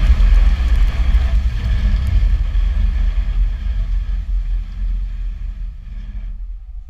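Plow truck running, a steady low rumble that fades out gradually.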